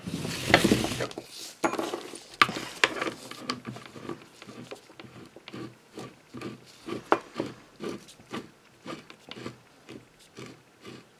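A metal drill chuck being screwed by hand onto a corded drill's spindle: a burst of handling rustle at the start, then a run of light clicks and scrapes, about two or three a second near the end.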